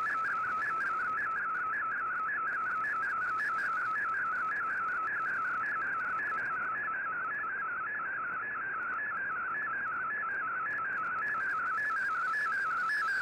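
Shortwave digital picture transmission in Fldigi's MFSK image mode, received on 15770 kHz: a single tone warbling rapidly up and down in pitch as it carries the image line by line, over faint band hiss.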